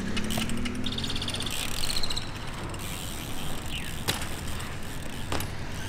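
BMX bike's rear hub ratcheting in short runs of rapid ticking as the rider coasts over concrete, with two sharp clicks later on.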